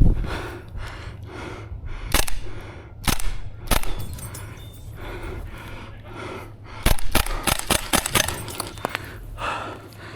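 Airsoft gunfire: a few sharp single shots, then a rapid string of shots about seven seconds in, with heavy breathing between them.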